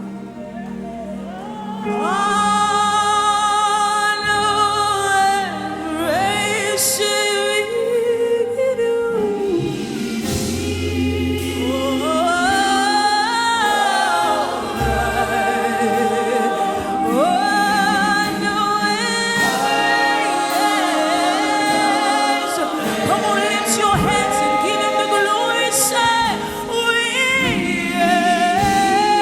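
Gospel worship singing: a lead voice and choir holding long, sliding notes over sustained keyboard chords, growing louder about two seconds in.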